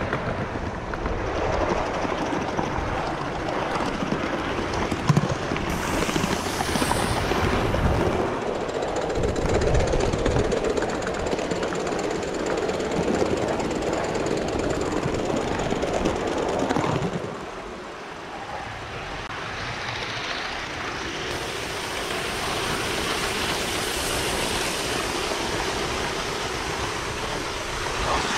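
Gauge 1 model train running on garden railway track, a steady rolling and clattering of wheels on the rails. The sound shifts abruptly a few times, dropping in level about two thirds of the way through.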